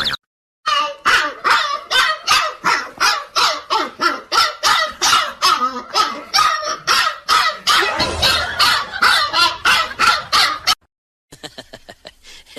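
A dog barking over and over in a fast, even run of about three barks a second, which cuts off abruptly near the end.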